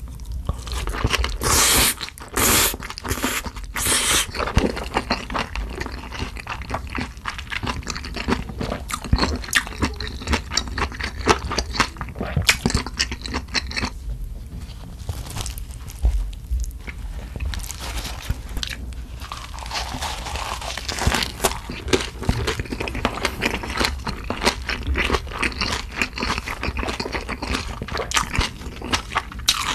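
Close-up mouth sounds of eating spicy sea-snail and thin wheat noodle salad (golbaengi somyeon muchim): loud slurps of noodles in the first few seconds, then steady wet chewing with crunchy bites. There is a short lull about halfway through.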